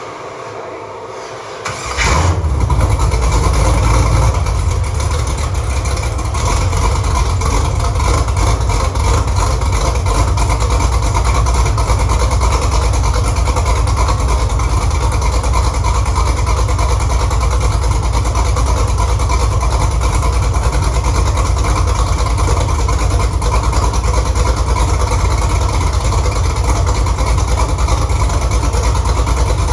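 A 6.2-litre LS V8 fires up about two seconds in, runs a little louder for a couple of seconds, then settles into a steady idle.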